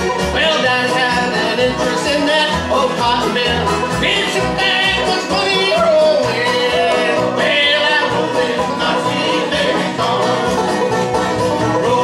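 Bluegrass band playing live: banjo, acoustic guitars, mandolin and upright bass, with men singing lead and harmony over a steady bass beat.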